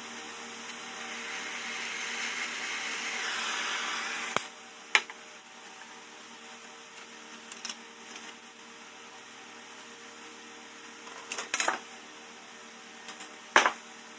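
A gas welding torch flame hisses on a motorcycle exhaust pipe joint, growing louder, then cuts off suddenly about four seconds in with a sharp click. A few sharp clicks and knocks follow, the loudest near the end.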